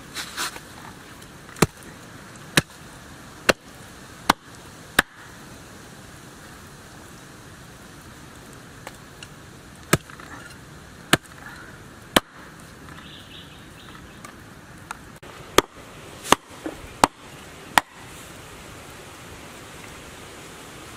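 Heavy cleaver chopping through crocodile tail onto a wooden chopping board: about a dozen sharp knocks in three groups, five about a second apart at the start, three near the middle and four near the end.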